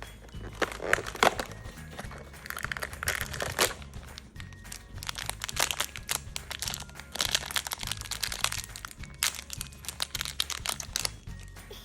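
Toy packaging crinkling and crackling as it is handled and torn open, in several bursts, over children's background music.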